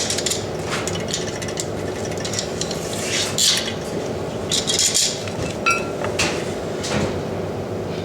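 Metal tools and fittings clinking and scraping as they are handled, with a brief ringing metallic ping a little before six seconds in, over a steady background hum.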